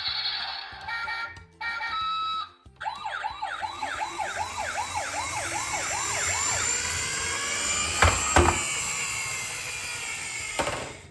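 Toy emergency vehicle's electronic siren: a few short electronic beeps, then a fast warbling yelp of about three or four cycles a second. Two knocks come about eight seconds in, and the sound cuts off just before the end.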